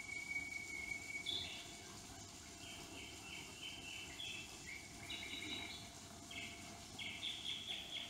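Nightingale song played for an animatronic nightingale. One long held whistled note is followed, about a second in, by a run of short whistled notes that step up and down in pitch.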